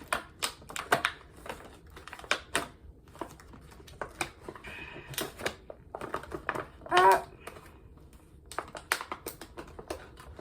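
Small packaging handled and pried open by hand: a run of sharp, irregular clicks and crinkles, with a short pitched sound about seven seconds in that is the loudest moment.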